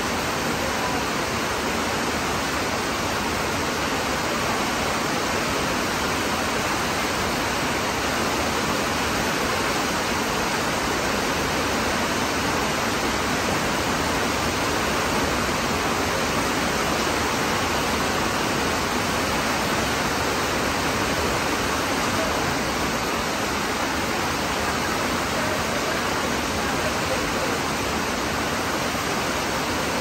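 Heavy tropical rain pouring down, a dense, steady hiss that does not let up.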